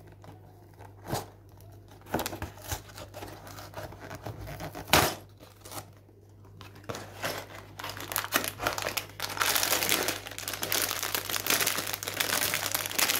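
A cardboard box end flap is worked open with scattered clicks and a sharp tear about five seconds in. From about eight seconds in, a clear plastic bag of Lego bricks crinkles steadily as it is pulled out and handled.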